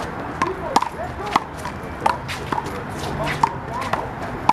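One-wall handball rally with a big blue rubber handball: about eight sharp smacks at irregular intervals as the ball is struck by hand and hits the wall and ground, with short squeaks between them.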